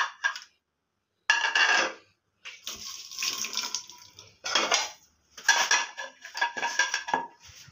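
Water from a tap splashing onto a ceramic plate as it is rinsed, in several bursts with short pauses, together with clinks of plates and a knife.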